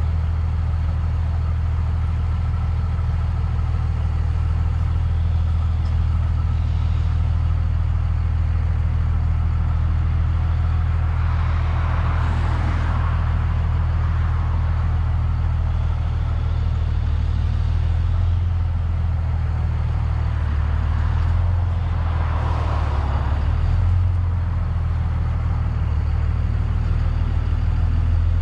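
Cummins diesel engine of a Dodge 5500 flatbed truck running steadily at low speed, with two brief swells of louder noise about twelve and twenty-two seconds in.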